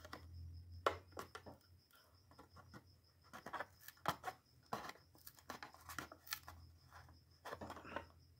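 Faint crinkles and clicks of a Hot Wheels plastic blister and its card backing being pressed and pried with the fingers, testing whether the acetone-soaked card has let go of the blister. The clicks are sparse at first and come more often from about three seconds in.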